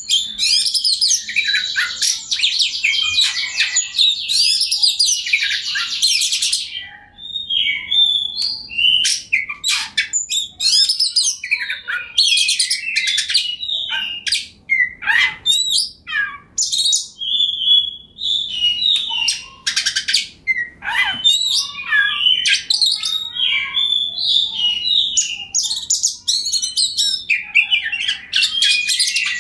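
Oriental magpie-robin (kacer) singing a loud, varied song. It opens with a fast, continuous trilled run for about six seconds, then goes on in a stream of whistled phrases, sharp chips and buzzy notes with only brief pauses.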